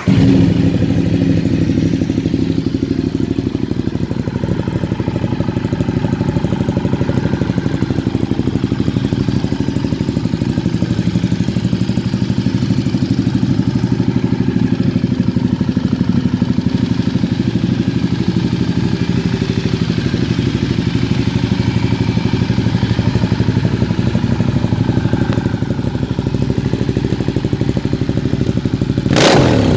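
Ducati Diavel 1200's 1198 cc Testastretta L-twin engine idling steadily with a loud exhaust. Near the end there is a brief, sharp loud burst.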